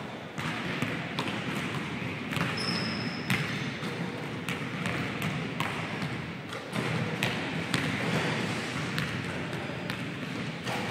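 Basketballs bouncing on a hardwood gym floor: irregular sharp thuds, several a few seconds apart and some closer together, over steady background noise.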